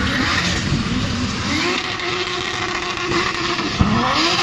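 Drift car's engine revving high, its pitch rising and falling again and again, with tyres squealing as the car slides sideways in heavy tyre smoke. A single sharp crack near the end.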